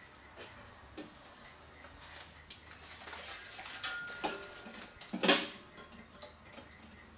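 Small clicks and clinks of hands handling wiring and clipping an alligator-clip test lead onto a connector under a pinball playfield, with a louder clack just past five seconds in.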